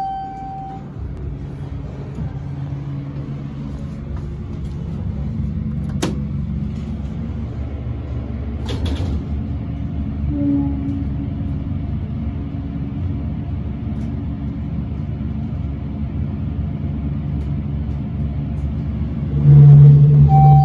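Montgomery hydraulic elevator riding up: a chime at the start, then a steady low rumble and hum from the car and its pump while it travels, with a sharp click about six seconds in. A much louder hum comes in near the end.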